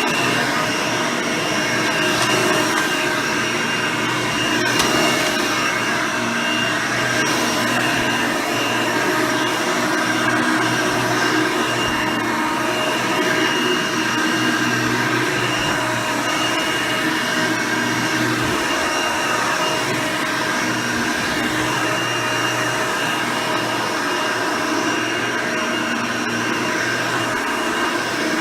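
Hoover Elite II 6.0 upright vacuum cleaner running steadily on its 6-amp motor: a constant whine made of several steady tones over a rushing hiss.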